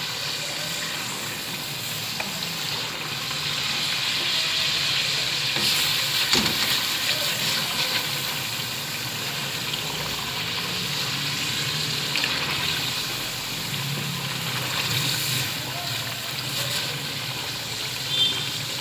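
Mutton liver curry sizzling in its masala in an aluminium karahi, being cooked down to dry off the gravy. A wooden spatula stirs and now and then scrapes the pan.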